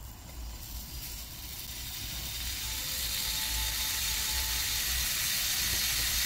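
Slices of Korean beef sirloin sizzling on a hot grill pan, a fine hiss that grows steadily louder after the meat is laid down.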